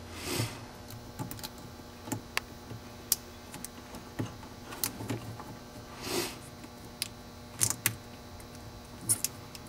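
Plastic wire connectors and cables being handled: scattered light clicks and rustles as a wiring harness is plugged into a golf cart's wiring, with a couple of short brushing sounds about half a second in and about six seconds in.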